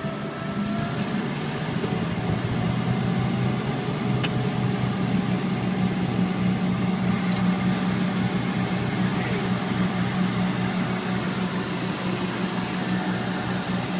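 The Cessna 414's twin turbocharged six-cylinder piston engines and propellers running steadily, heard inside the cockpit as a deep even drone with a fainter higher whine that shifts slightly in pitch early on. A few faint clicks can be heard.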